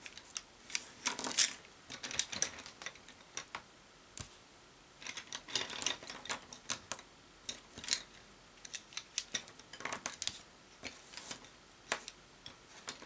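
Wooden colored pencils clicking and clattering against one another and on a tabletop as they are sorted by hand. The clicks come in irregular clusters, with a short lull about four seconds in.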